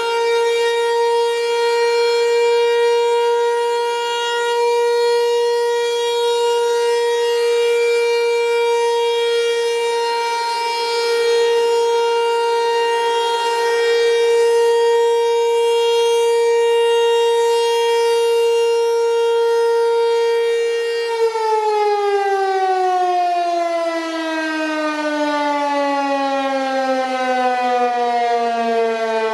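Federal Signal Equinox outdoor warning siren sounding the steady full-alert tone, its level swelling and fading slightly. About twenty seconds in the signal ends and the pitch falls steadily as the siren winds down.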